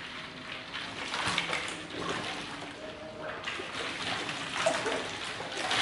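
Shallow water splashing and sloshing, with hollow plastic play balls knocking together as a child moves about in a small inflatable ball pool.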